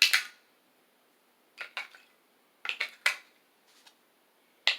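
Short, sharp clicks and clinks of small hard objects being handled, coming in about four quick clusters with quiet gaps between them.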